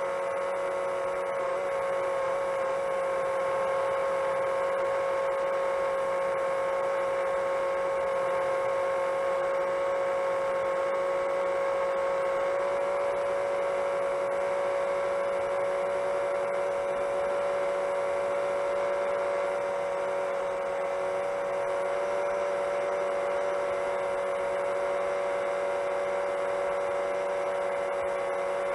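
Quadcopter motors and propellers of a 7-inch long-range FPV drone whining steadily at cruise. The pitch steps slightly about twelve seconds in.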